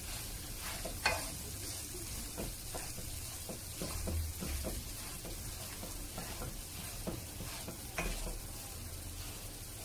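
Spatula stirring and mashing fried vegetables and boiled potato in a wok over a steady sizzle, in repeated short scraping strokes. Sharper taps of the spatula on the pan come about a second in and again near the end.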